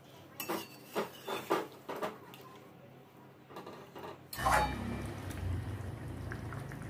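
Metal spatula clinking and scraping against an aluminium kadai while stirring a thick curry, several quick strokes in the first couple of seconds. About four and a half seconds in there is a thump, followed by a louder low rumbling noise.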